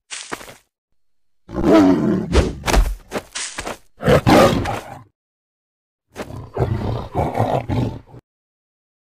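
Big cat snarling and roaring, dubbed on as sound effects for the fight: a brief snarl at the start, a long growling run of roars from about a second and a half in until about five seconds, then another roar about six seconds in.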